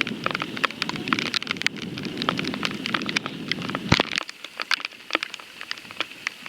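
Heavy rain, with drops tapping sharply and irregularly close to the microphone. A lower rushing noise under it cuts off about four seconds in with a single sharp knock.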